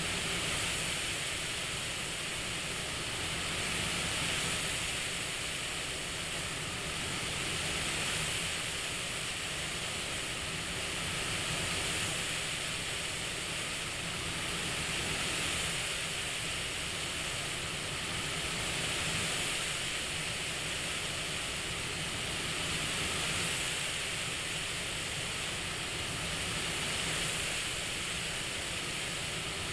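CPAP-style breathing hiss: steady airflow noise that swells and eases about once every four seconds, like slow breaths through a CPAP mask.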